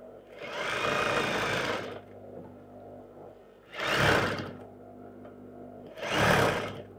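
Juki industrial sewing machine stitching in three short stop-start runs, a long one first and then two brief ones, with a faint steady motor hum between them. The runs come as an elastic waistband is stretched and sewn onto the skirt a section at a time.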